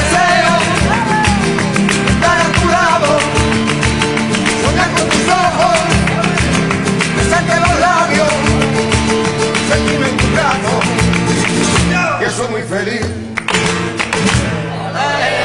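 Flamenco rumba played on Spanish guitars, with an even beat of hand-clapping (palmas) and voices singing along without clear words. About twelve seconds in the playing thins out and the song winds down.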